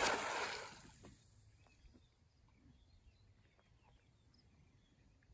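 Cast net (atarraya) landing flat on the water: a spreading splash that fades out about a second in, followed by quiet as the net sinks.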